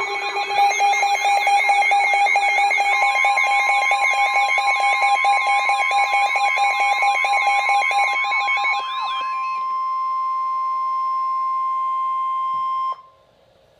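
Weather-alert radio alarms sounding together: several fast-warbling electronic alarm tones with steady beeping tones, joined about three seconds in by the steady 1050 Hz NOAA Weather Radio warning tone. The warbling alarms stop about nine seconds in and the steady tone cuts off abruptly near the end, signalling that a warning message is about to be read.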